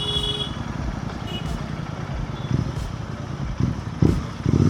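Royal Enfield Continental GT 650's 648 cc parallel-twin engine running under way, with a steady low pulse. The engine gets louder near the end as the throttle opens. A short high-pitched beep sounds near the start.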